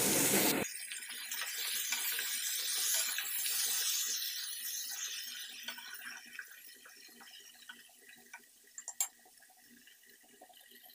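Pointed gourd pieces sizzling in hot refined oil in a kadai, with light scraping from a spatula as they are stirred. The sizzle fades away over the first several seconds, and a single sharp click follows.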